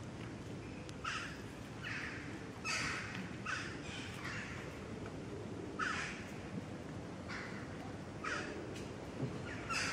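Crow cawing: a series of short, harsh caws, about ten in all, coming in bouts of two to four over a steady low background noise.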